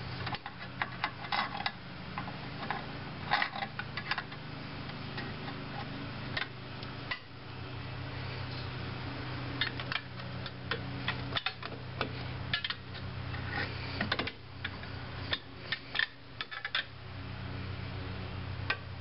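Brake spring pliers clinking and scraping against the return spring and shoe of a 2000 Dodge Caravan's rear drum brake as the spring is worked off: a run of short, irregular metallic clicks and clanks over a low hum.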